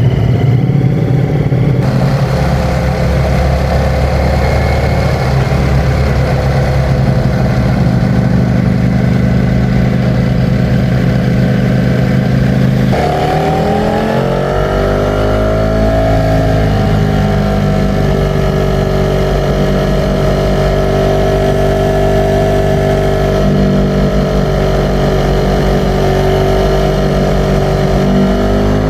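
Ducati Streetfighter V4 S's 1103 cc V4 engine running at a steady note, then climbing in pitch about halfway through and holding a higher note. It starts to rise again near the end.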